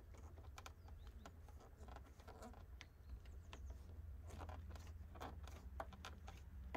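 Faint scattered clicks and light scraping of a car's plastic rear door trim panel being pried loose at its upper edge with a plastic pry tool, a little busier from about three seconds in.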